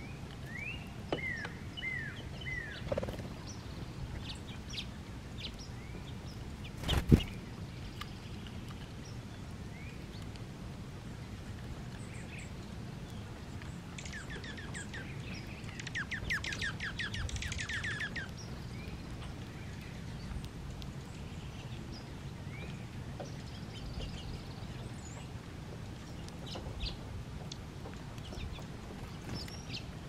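Small songbirds chirping now and then, with a few short down-slurred chirps near the start and a rapid trill of quickly repeated notes lasting a few seconds about halfway through. A single sharp knock about seven seconds in is the loudest sound, over a steady low background noise.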